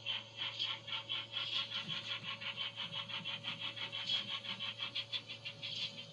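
Sound decoder of a Dapol OO gauge 'Terrier' steam tank engine model playing rapid steam-exhaust chuffs through the model's small speaker, about six a second, over a steady hum.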